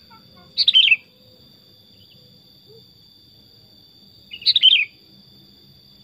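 Sooty-headed bulbul (kutilang) singing two loud, short phrases of quick falling notes, nearly four seconds apart.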